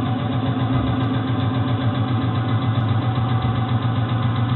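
Subaru Brumby's flat-four engine idling steadily, with a knocking that the owner puts down to a head knock.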